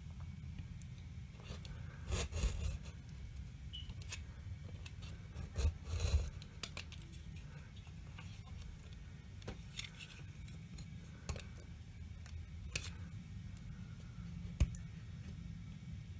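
Craft knife blade scraping and prying at the edge of dried decorator's filler, breaking the matchstick frame away: scattered scrapes, rubs and small clicks, with louder scraping spells about two and six seconds in and a sharp click near the end.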